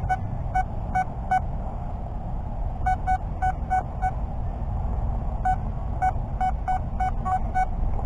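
Nokta Makro Anfibio Multi metal detector giving short, repeated beeps as its coil sweeps over a buried metal target. The beeps come in three runs: about four near the start, about six in the middle and about eight in the last third.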